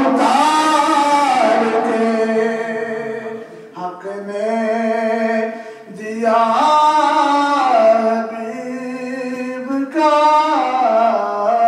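A man singing an Urdu naat unaccompanied, in several long phrases with drawn-out held notes and brief pauses between them.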